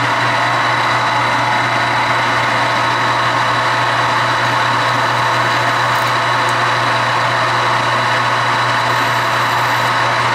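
Metal lathe running at a steady speed with a strong low hum, spinning the blued workpiece so a layout line can be scribed on its face; it cuts off suddenly at the end.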